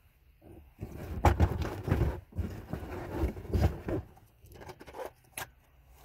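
Muffled handling noise: rubbing, scraping and dull knocks on the recording phone's covered microphone, loudest between about one and four seconds in, then a few sharp clicks near the end.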